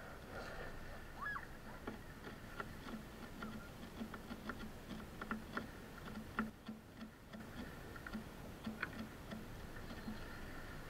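Kitchen knife chopping fresh herbs on a wooden cutting board: quick, even chops about three a second, each a short knock on the board with a crisp click of the blade.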